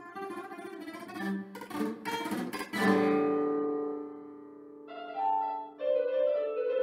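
Nylon-string classical guitar playing picked notes, then a quick flurry of strums ending in a chord that rings out and fades. About five seconds in, a few electronic keyboard notes begin.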